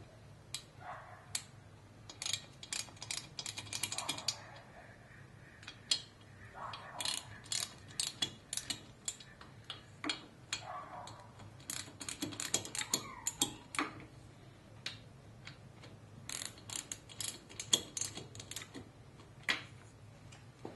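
Hand ratchet clicking in quick runs with short pauses between them, as the oiled head bolts of a Harley-Davidson Twin Cam engine are run down and lightly snugged.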